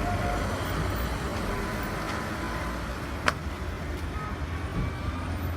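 Road traffic noise: a steady low rumble of vehicles with an even hiss, and one sharp click a little over three seconds in.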